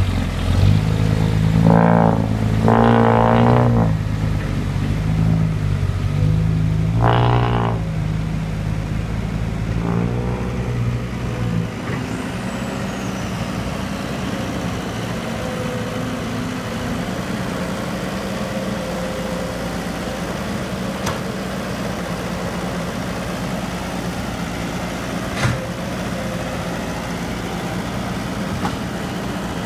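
Heavy diesel engine of an excavator or dump truck running under load, with several short pitched surges in the first twelve seconds, then running steadily.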